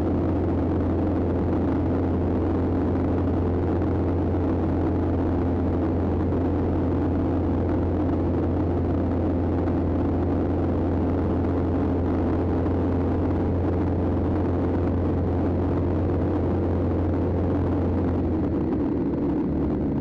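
Light single-engine airplane's piston engine and propeller heard from inside the cabin: a loud, steady drone with a deep hum, shifting slightly near the end.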